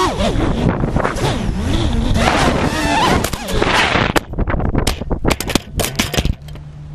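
Small FPV quadcopter's electric motors whining unsteadily in strong wind, their pitch wavering as the drone loses control. From about three seconds in, a rapid run of sharp clicks and knocks follows, typical of the propellers striking as it crashes, and it ends in a low hum.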